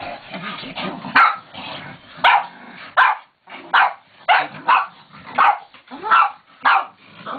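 Dog barking repeatedly during rough play: about ten short, sharp barks, starting about a second in and coming one or two a second.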